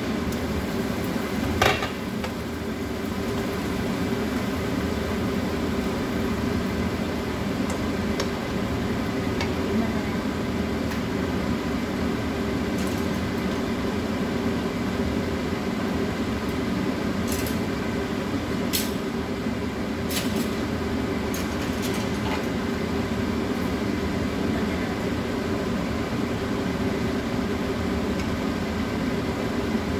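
Stir-fry cooking in a nonstick wok on an induction hob: a steady hum and hiss from the hob and the food in the pan. A sharp clink of the glass lid comes about two seconds in, and a few light clinks of utensils against the pan come a little past the middle.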